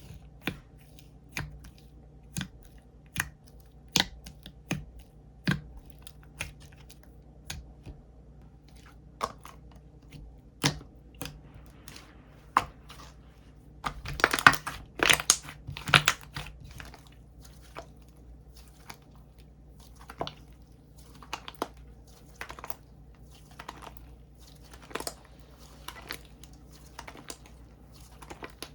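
Bubble cream slime being pressed and poked by hand, giving sharp wet pops and clicks about once a second. Around the middle it turns into a quick run of dense crackling pops, then goes back to scattered clicks.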